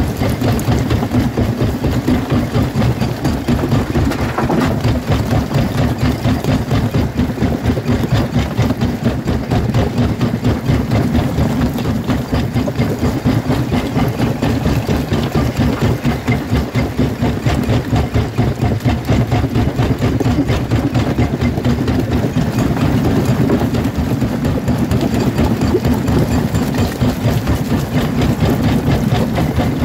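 Jaw crusher running under load, its corrugated jaw plates working steadily on a chamber full of stone with a rapid, even, heavy pulsing and rock grinding between the plates.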